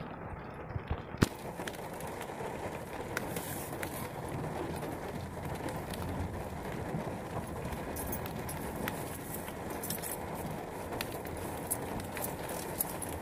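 Steady rain falling, with frequent sharp taps of drops landing close by and one louder tap about a second in.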